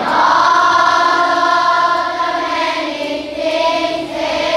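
Many grade-school children singing the school song together in chorus, holding long notes and moving to a new note about three seconds in.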